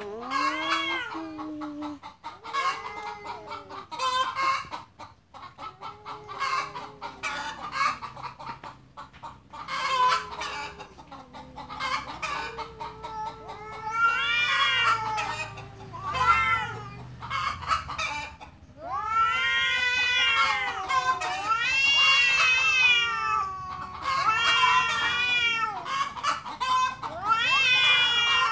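Two cats yowling at each other in a fight standoff: drawn-out, wavering wails that rise and fall in pitch like a crying baby. The wails grow longer and louder from about halfway through.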